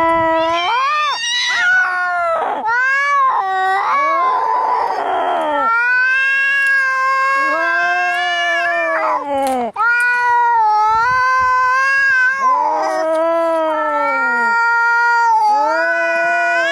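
Angry cats caterwauling: long, wavering yowls follow one after another, at times two voices overlapping, with a harsh hissing stretch about four seconds in. The yowls are typical of a cat fight.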